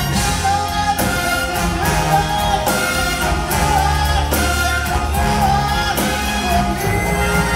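Live big band playing an instrumental passage, saxophones and brass carrying the melody over bass and drums, with regular accented hits about once a second.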